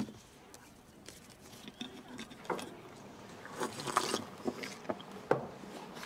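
Scattered light clicks and knocks, irregular rather than rhythmic. There is a sharp knock at the start, a busier cluster of clicks about four seconds in, and another sharp knock shortly before the end.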